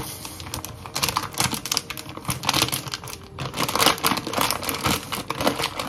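Rapid, irregular clicking and crackling, dense and uneven.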